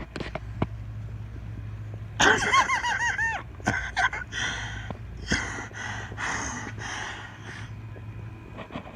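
A dog giving a quick run of high yelps, rising and falling, about two seconds in, then snorting and snuffling for a few seconds, over a steady low engine hum.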